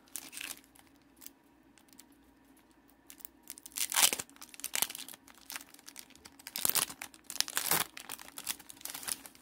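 Foil wrapper of a Pokémon trading card booster pack crinkling and tearing as it is ripped open by hand, in several short bursts, the loudest about four seconds in.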